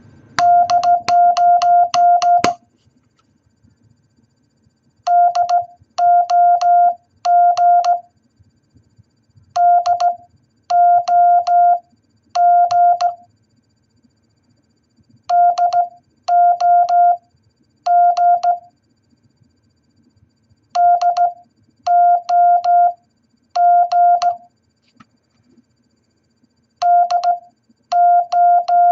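A Morse code tone spelling out the word 'GAS' (dah-dah-dit, dit-dah, dit-dit-dit) as short and long beeps, each beep starting with a slight click. The word repeats about every five and a half seconds, after a quick run of short beeps at the very start.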